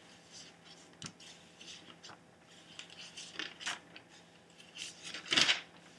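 Pages of a Bible being turned while looking up a passage: scattered soft paper rustles and a small tap, the loudest rustle near the end.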